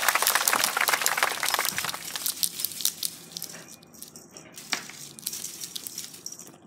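A crinkly cat teaser toy rustling and crinkling as it is shaken and swung: a dense patter of crackles for the first three seconds, then sparser crinkles with one sharper click near the five-second mark.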